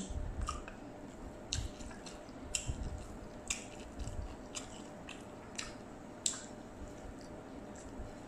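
Close-up mouth sounds of a person eating fried rice vermicelli with her fingers: wet chewing with sharp lip smacks every half second to a second.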